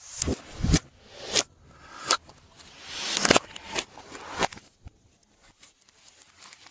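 Glossy slime being squished and folded by hand, making wet squelches that end in sharp clicks and small air-bubble pops about once or twice a second. It goes quieter for a moment near the end.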